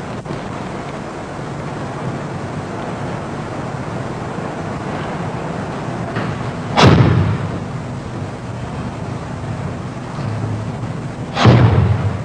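Two heavy foot stomps on a wooden floor, about five seconds apart, each a sharp hit that dies away quickly, over steady tape hiss and hum: the stamping steps of a Bajiquan form.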